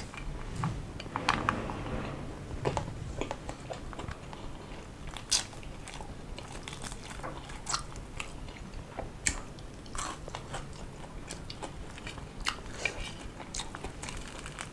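Close-up eating sounds: chewing and crunching small whole fish (baby ikan salir) with rice, with irregular crisp crunches and clicks. The sharpest crunches come about five and nine seconds in.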